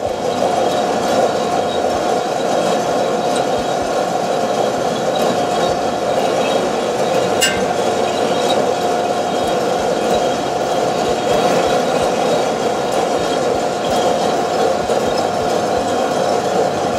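Two-barrel Probat sample coffee roaster running: a steady machine hum with a constant tone, and the beans rattling as they tumble in the drums, about four minutes into the roast while they change colour and before first crack. A single sharp click about seven and a half seconds in.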